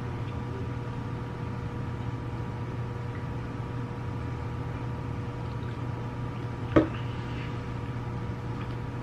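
Steady room hum with a few faint steady tones, and a single sharp click or knock near the end.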